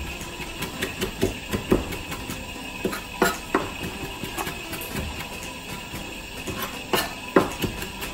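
Chef's knife chopping flat-leaf parsley on a plastic cutting board: irregular knocks of the blade striking the board, some much louder than others, over a steady background hiss.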